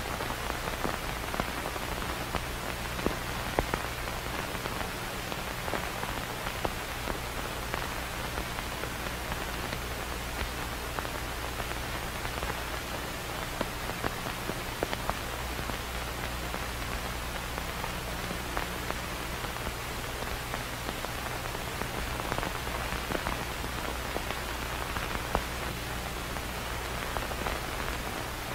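Steady hiss with scattered pops and crackles over a low hum: the surface noise of a worn 35mm film optical soundtrack running blank, with no music.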